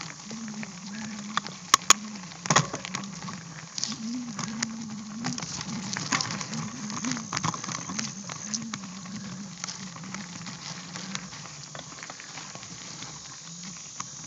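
Bicycle rolling along a rough dirt and gravel trail: tyres crackling and pattering over stones and twigs, with a few sharp knocks from bumps about two seconds in and a low wavering hum underneath.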